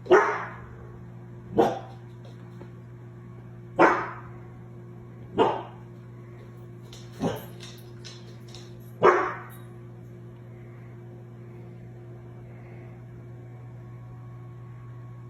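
German Shorthaired Pointer barking: six single barks, one every one and a half to two seconds, over roughly the first nine seconds. After that only a steady low hum remains.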